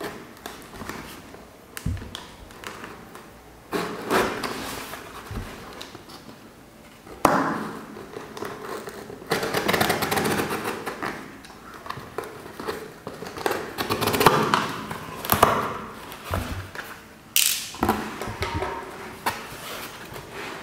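Utility knife slicing through packing tape on a cardboard box, then the tape being peeled off and the flaps pulled open: irregular scraping, tearing and rustling of tape and cardboard with a few sudden knocks.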